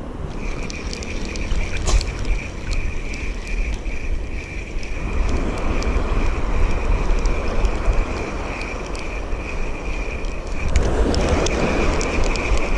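Wind buffeting the microphone over waves washing on the shore, with a louder surge of surf near the end. A steady high whine and scattered light ticks run over it.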